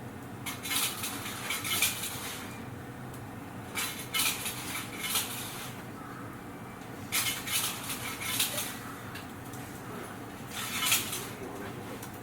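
Steady low hum inside a Tobu 8000 series train, broken four times, about every three seconds, by short bursts of metallic clinking and rattling.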